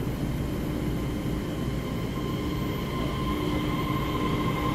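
Taiwan Railway EMU3000 electric multiple unit running along an underground station platform: a steady rumble of the cars with a level motor whine that grows slightly louder, a higher whine joining about two seconds in.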